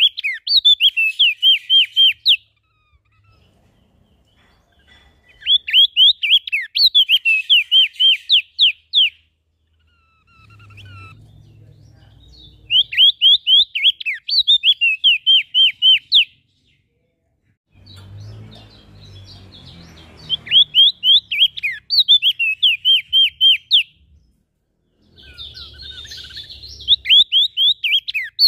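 Songbird singing in loud bouts of rapid, sharp chirping notes, several a second. Each bout lasts about three seconds, and five come with short pauses between them. Fainter chirps and a low rumble fill some of the pauses.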